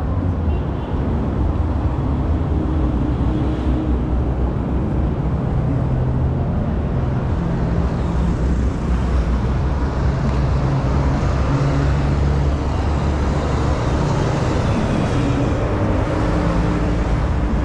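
Road traffic on a busy city avenue: a steady low rumble of vehicle engines running and passing, the engine hum rising and falling, with one vehicle swelling past near the end.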